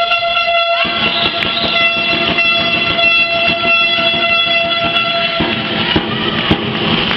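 A horn held on one long steady note for several seconds, cutting off about five and a half seconds in, over the din of a handball hall, with a few sharp thuds near the end.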